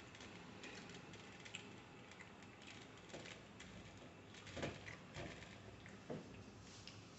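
Faint crackling and rustling of flaky Kerala parotta being torn apart by hand on a steel plate, with a few louder short taps in the second half.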